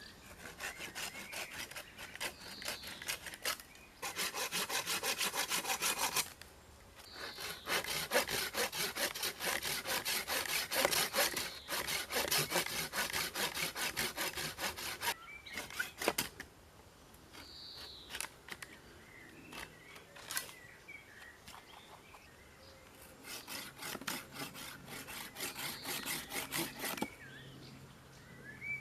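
Spears and Jackson hand pruning saw cutting through tree wood with rapid back-and-forth strokes, in several runs broken by short pauses, the strokes lighter in the second half.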